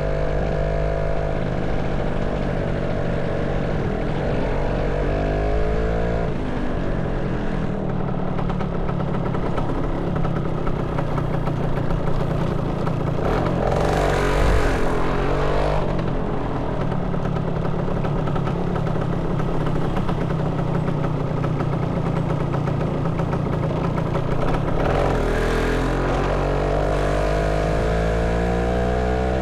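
Motorcycle engine running under way. Its pitch climbs as it accelerates twice, once a few seconds in and again near the end, and there is a louder surge about halfway through.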